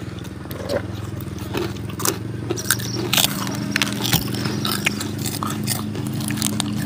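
Close chewing and crunching of a papaya salad meal with crispy pork cracklings and fresh lettuce, with sharp crunchy bites scattered through, over a steady low hum.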